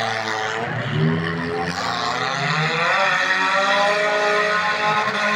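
Engines of several stripped compact demolition derby cars revving, their pitch rising and falling as they accelerate and back off, with a brief louder hit about a second in.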